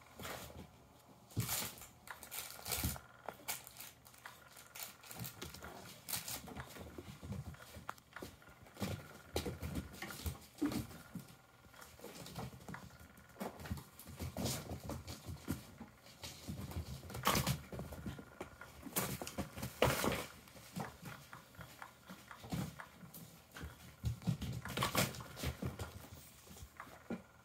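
Kittens scampering and pouncing, their paws patting and scuffing on a crinkly plastic tarp and carpet in irregular flurries of soft taps and rustles.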